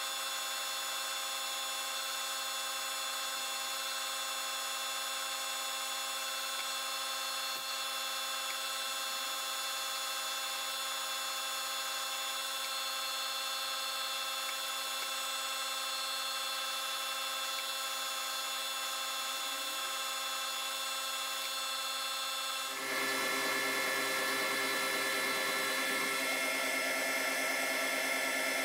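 Metal lathe running steadily, its spindle drive giving a steady whine of several tones while a small steel pin is turned down toward 5 mm in light passes. About 23 seconds in the tone changes and gets a little louder.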